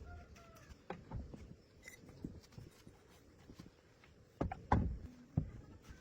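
Scattered knocks and clicks, as of things being handled, with a loud cluster of knocks about four and a half seconds in.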